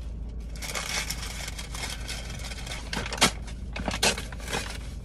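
Rustling and crinkling of a paper fast-food bag and a foil sandwich wrapper being handled, with a few sharper crackles about three and four seconds in, over a steady low hum.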